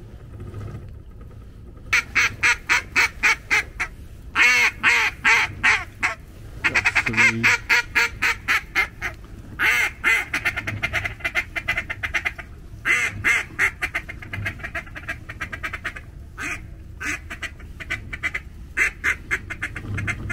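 Hand-blown duck calls sounding loud, rapid runs of quacks, starting about two seconds in and repeated in series, calling to ducks flying overhead.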